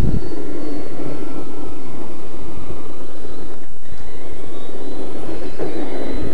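Electric RC truck running, likely a Traxxas Summit: a loud, steady motor and gear whine over rattling noise on the small camera's microphone, the whine drifting slightly higher about halfway through.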